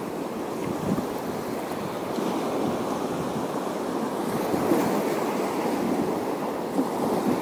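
Waves washing steadily against the shore.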